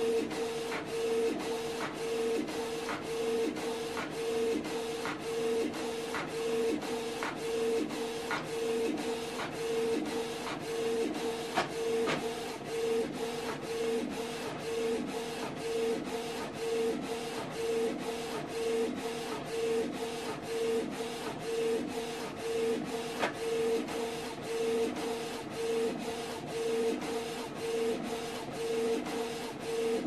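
Canon PIXMA MG2551S inkjet printer printing its print head alignment pattern: the print head carriage shuttles back and forth with a humming whine about twice a second, with faint regular clicks of the paper feed.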